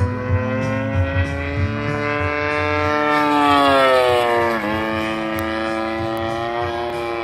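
Desert Aircraft DA-120 twin-cylinder two-stroke gas engine of a 3DHS Demonstrator RC aerobatic plane in flight. Its pitch climbs as the plane closes in, then falls sharply as it passes about halfway through, and it settles into a steady drone.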